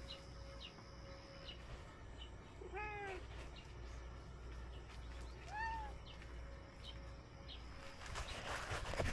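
A cat meowing twice: a lower, falling meow about three seconds in and a higher, arching meow about two and a half seconds later. A brief burst of noise near the end.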